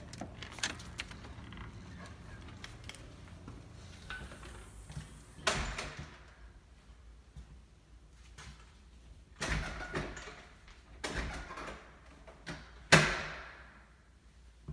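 Glass storm door and front door being opened and shut: several separate clunks and knocks of door and latch, the loudest near the end with a short ringing decay.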